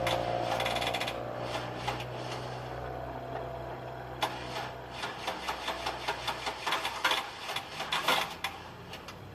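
2000 Pontiac Firebird 3.8L V6 being cranked on a worn battery during a hard start: a low, steady starter hum fades over the first few seconds. About four seconds in, rapid, irregular clicking follows for some four seconds, typical of a starter struggling on a weak battery.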